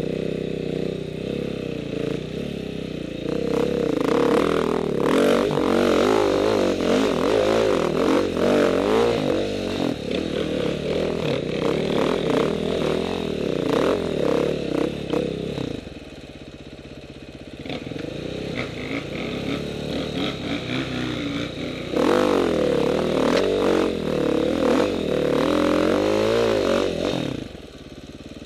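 Dirt bike engine revving hard and unevenly under load on a steep climb, its pitch rising and falling with the throttle. It eases off to a lower run for several seconds past the middle, pulls hard again, then drops away near the end.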